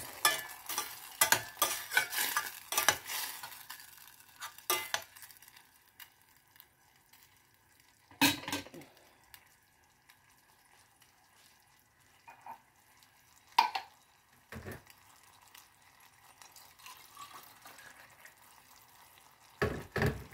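A metal spoon scraping and clacking against a stainless steel saucepan as canned sardines are mashed in a sizzling tomato sauce, busy for the first few seconds. After that the sauce simmers with a faint sizzle, broken now and then by a single knock of the spoon on the pot.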